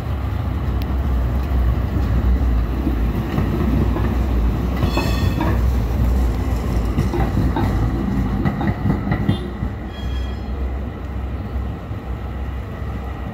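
Vintage tram passing close by on its rails: a low rumble with wheel clatter, brief high squeals from the wheels about five seconds in and again around ten seconds, then fading as it pulls away.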